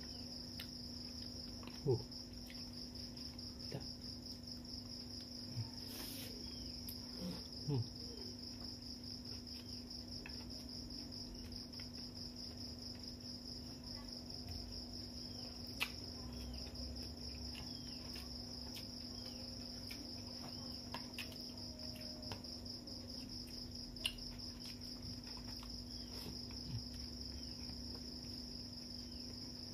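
Continuous high insect trill, with a few sharp clicks and smacks of eating rice and fish by hand from a plate scattered through it, over a low steady hum.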